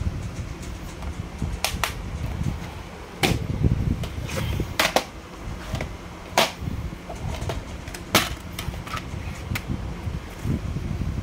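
Plastic DVD keep cases being handled: about half a dozen sharp clicks and snaps as cases are opened and shut, with rubbing and handling noise between them.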